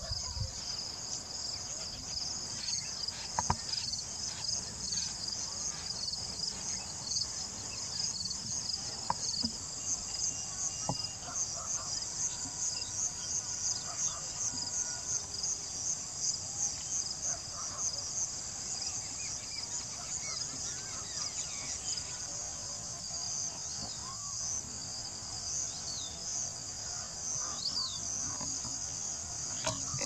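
Steady chorus of insects in grassland, a dense continuous high-pitched trilling, with a few brief chirps near the end.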